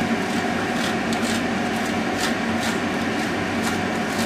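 Block of Gouda cheese rubbed down a metal box grater, about two short scraping strokes a second, over a steady background hum.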